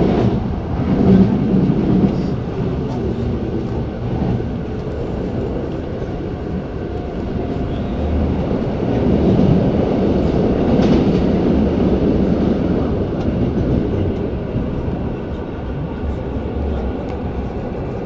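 MI09 RER A double-deck electric train running at speed between stations, heard from aboard: a steady rumble of wheels on rail with faint steady tones above it.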